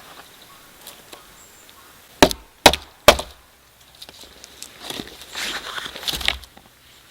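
Three sharp blows of a tool biting into wood, about half a second apart, then softer knocking and rustling of wood being handled.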